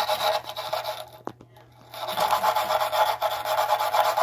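Wire brush scrubbing rust and corrosion off the threaded water-line connection on top of a water heater, in rapid back-and-forth strokes. The scrubbing breaks off for about a second near the start, then resumes.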